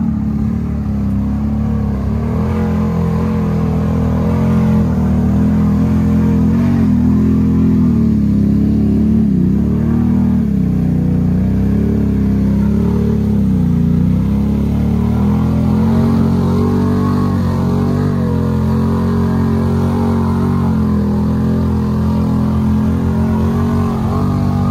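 Can-Am Outlander XMR 850 ATV's V-twin engine revving up and down, under load as it pushes through a flooded mud hole.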